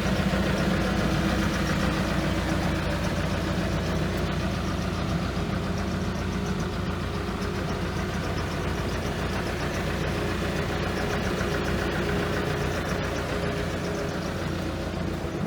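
Hitachi ZX280LC-3 tracked excavator's six-cylinder diesel engine idling steadily, slowly getting a little quieter.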